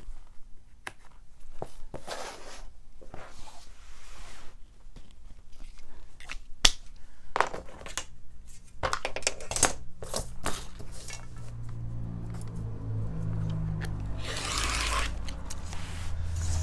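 Handling sounds of cutting fabric on a worktable: scattered clicks, taps and scrapes of a pen and metal straightedge on a roll of muslin, then a rotary cutter drawn along the straightedge to cut the muslin off the roll near the end. A low hum swells in the background over the last few seconds.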